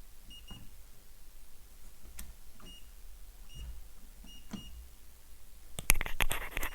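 Digital multimeter giving short high beeps, some single and some in quick pairs, as it is set up for measurements. A loud rattling clatter comes near the end.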